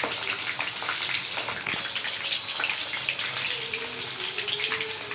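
Hot oil deep-frying battered potato-and-chicken rolls in a kadai, sizzling steadily with dense crackling and popping as the bubbles burst.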